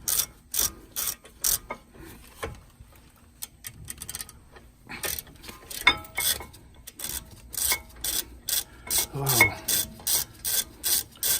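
Hand ratchet wrench clicking in a steady rhythm of about two to three clicks a second as it turns a bolt. The clicking stops for a few seconds about two seconds in, then picks up again.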